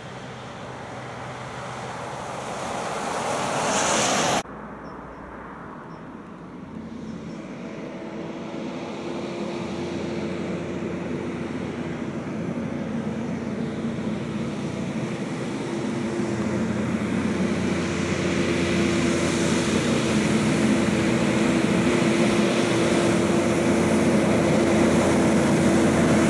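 Tyres hissing on a wet road as a ute passes, growing louder until it cuts off about four seconds in. Then a Kenworth cab-over truck pulling refrigerated trailers approaches, its diesel engine and tyres building steadily louder, with a steady hum.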